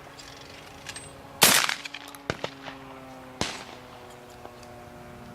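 Shotgun fired at a thrown clay target: one loud bang with a ringing tail about a second and a half in, a short sharp click, then a second, quieter bang about two seconds after the first.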